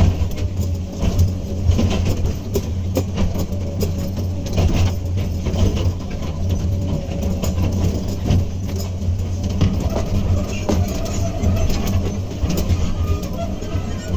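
Komatsu PC200 excavator's diesel engine running steadily, with scattered knocks and clanks throughout.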